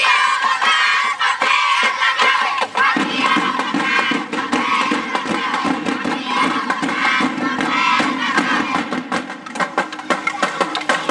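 Music mixed with a crowd of spectators shouting and cheering; near the end a quick, even percussion beat comes forward.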